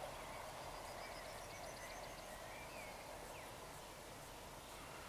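Faint outdoor ambience: a bird gives a quick run of rising chirps, then a few short whistled notes, over a steady low hiss.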